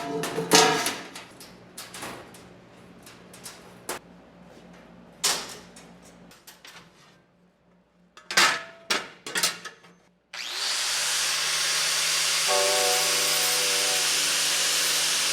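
Scattered knocks and clicks of metal being handled, then about ten seconds in a loud, steady hiss from a shop tool starts abruptly and keeps going. Music comes in over it a couple of seconds later.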